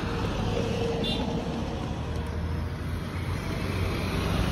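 Steady low rumble of outdoor background noise, with a brief faint tone about a second in.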